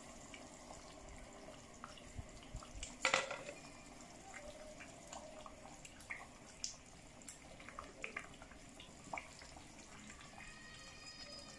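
Gentle bubbling of a watery tomato and palm-oil stew, with soft wet plops and drips as whole seasoned tilapia are slipped into the pot one at a time. A sharper knock about three seconds in.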